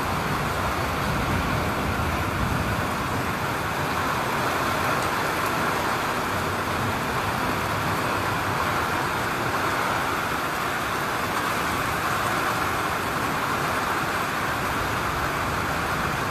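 Heavy rain and wind of a severe thunderstorm, a steady, even rush with no breaks.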